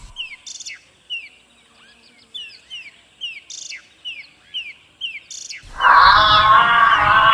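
A bird calling with a run of short, high, falling chirps, about two a second. About six seconds in, much louder music cuts in over it.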